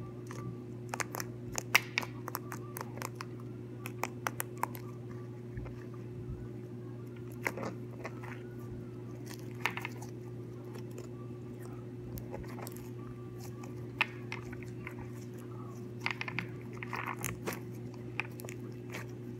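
Fingers squishing, pinching and folding thick slime: irregular sticky clicks and crackles, often in small clusters, over a steady low hum.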